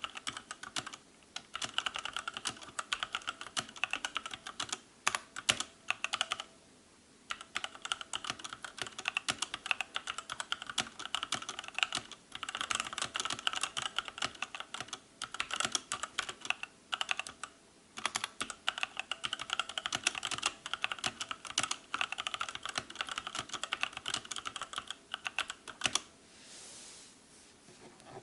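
Motospeed CK62 60% mechanical keyboard being typed on fast and continuously, a dense run of quiet key clacks broken by short pauses every few seconds. The typing stops about two seconds before the end.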